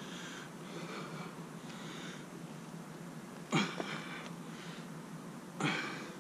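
A man breathing hard from a bodyweight workout, with a steady rhythm of noisy breaths and then two loud forceful exhales about two seconds apart in the second half.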